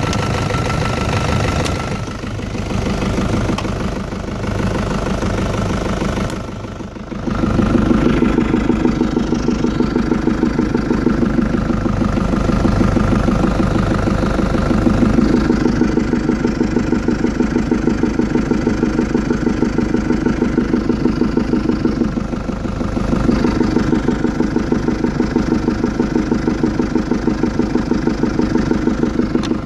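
Engine idling after a cold start from an overnight standstill, with a steady rhythmic knocking that the owner wonders may be valve knock. It briefly drops and then runs louder from about seven seconds in.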